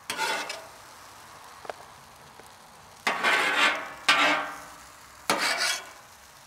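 Metal spatula scraping across a hot flat-top griddle as fried rice is pushed into a container, in four strokes: one right at the start, then three close together in the second half.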